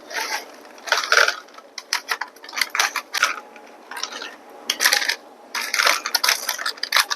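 Small snack packet crinkling and rustling in irregular bursts as it is handled and opened.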